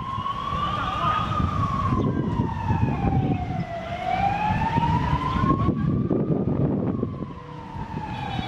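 A wailing siren, its pitch rising and falling slowly about once every five seconds, over a rumbling background of noise.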